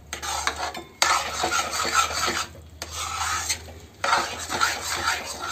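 Slotted steel spatula scraping and stirring grainy semolina and coarse sugar in a metal kadhai, a rasping scrape in three spells with short pauses between.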